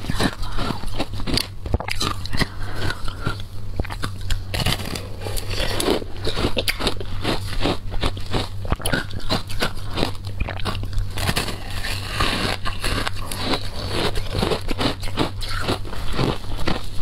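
Block of compressed shaved ice soaked in passion fruit pulp being bitten and chewed, a dense run of crisp, irregular crunches. The crunches are fewer at first and come thick and fast from about four seconds in.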